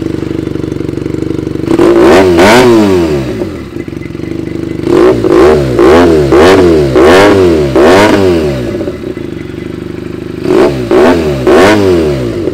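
Benelli 300's 300 cc twin-cylinder engine breathing through a replica slip-on exhaust, idling and blipped with quick throttle revs. There is one rev about two seconds in, a fast run of about six blips from about five seconds, and three more near the end, each time settling back to idle.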